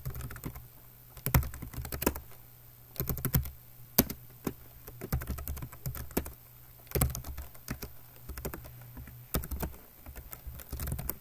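Typing on a computer keyboard: short bursts of rapid key clicks with pauses between them.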